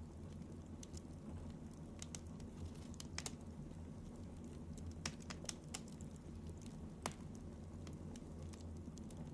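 Scattered light clicks and ticks, a few in quick pairs and the sharpest about seven seconds in, over a steady low hum; no snoring breaths stand out.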